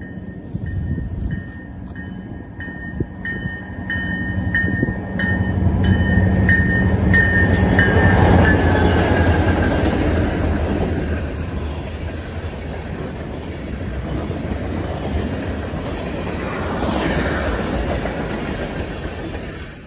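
A fast train led by CN first- and second-generation diesel-electric locomotives passes. The engines' deep drone builds to its loudest about eight seconds in, then gives way to a long rumble and clatter of wheels on the rails. Through the first half a bell rings about twice a second, dropping in pitch as the locomotives go by.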